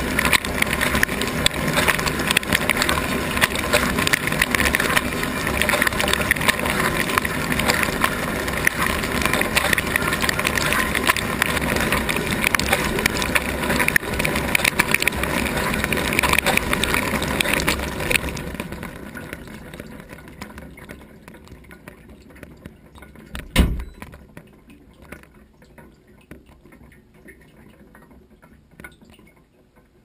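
Wash water from a Gorenje GS 53314 W dishwasher's spray arms spraying over the racks and dishes, heard from inside the wash tub as a loud, dense rushing. About 18 s in the spray dies away over a few seconds, leaving scattered drips, with a single thud about 23 seconds in.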